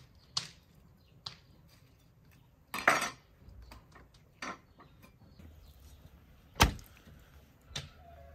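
Knife and wooden cutting board being handled on a wooden table: scattered knocks and clinks, a longer scrape about three seconds in, and a sharp knock about six and a half seconds in.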